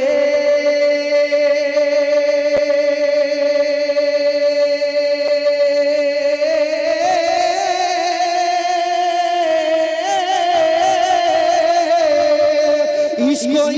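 Male singer of a manqabat, a Sufi devotional praise song, holding one long wordless note into a microphone, then bending it into wavering turns from about halfway, with a step up in pitch and back down near the end.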